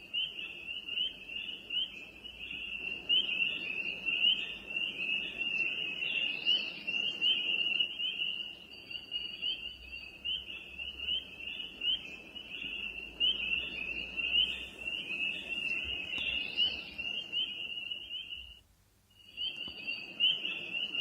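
Recorded night-time cricket chorus played back as a sleep-aid sound through the Divoom Tivoo's small speaker: a steady, shrill, fast trill. It cuts out for about a second near the end and starts again, as the sound loops.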